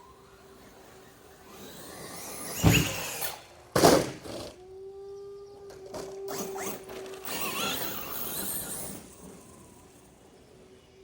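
Electric RC monster truck, an Arrma Kraton, accelerating with a rising whine, then two hard thumps about a second apart as it hits the ramp and lands, followed by a few seconds of it running and tumbling on before fading out.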